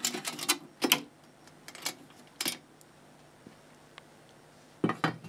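Thin steel shield cover being lifted off a monitor's inverter board and handled: a handful of sharp clicks and clanks of sheet metal over the first two and a half seconds, then another clatter near the end.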